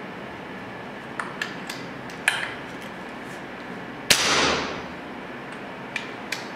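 A Brocock Bantam .25 PCP air rifle is cocked with a few light metallic bolt clicks. About four seconds in it fires: a sharp crack with a short rush of escaping air that fades within a second. Two more bolt clicks follow near the end.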